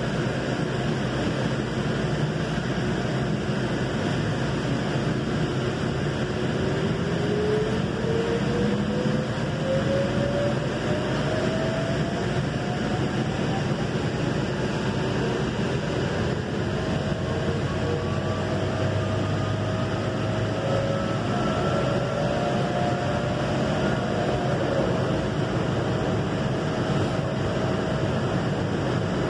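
Valley Metro light-rail car running, heard from inside the car: a steady rumble and hiss, with a whine from the electric drive rising slowly in pitch from about six seconds in as the train gathers speed, and a steadier tone joining in past the middle.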